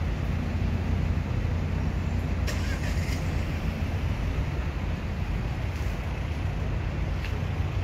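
City street traffic noise: a steady low rumble of road vehicles idling and moving in a queue, with a few faint clicks.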